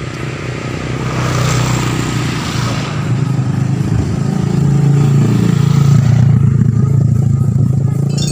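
Small motorcycles riding past close by, their engine hum growing louder and peaking about five to six seconds in.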